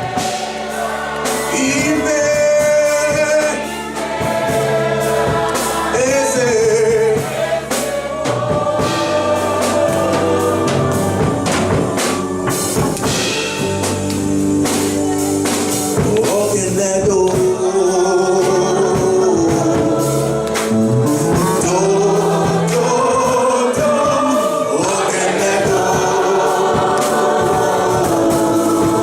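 Gospel music with a group singing over a band, with steady percussion.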